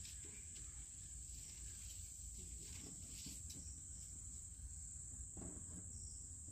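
Insects trilling steadily, a constant high-pitched drone, over a faint low rumble.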